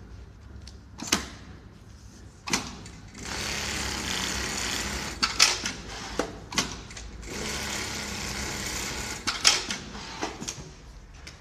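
Automatic pattern sewing machine stitching velcro in two runs of about two seconds each, with sharp clacks before, between and after the runs.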